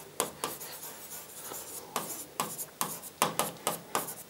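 Stylus writing on the glass of an interactive display: short scratchy strokes and taps, several a second, getting louder and quicker from about two seconds in.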